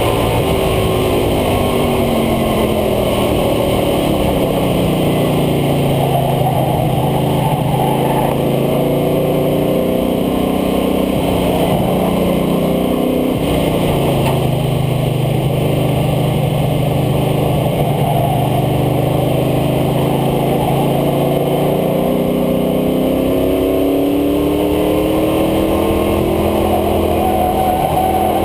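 International Harvester Scout II's engine under a heavy rush of wind and tyre noise at the front air dam: its pitch falls over the first several seconds as the truck slows for a corner, holds low and steady through the middle, then climbs near the end as it accelerates away.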